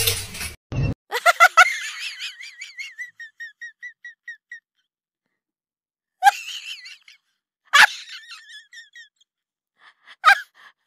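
Bursts of quick, high-pitched calls, about a second in, around six and eight seconds (the loudest) and near the end, each followed by an echo effect that repeats and fades away.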